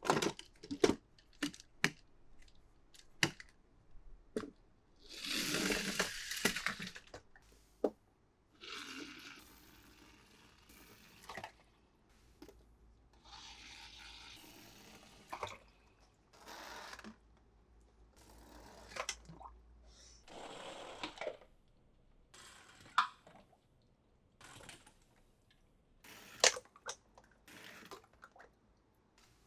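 Toy packaging being handled and opened by hand: scattered sharp clicks and taps of plastic, with several bursts of tearing and rustling. The longest and loudest burst comes about five to seven seconds in.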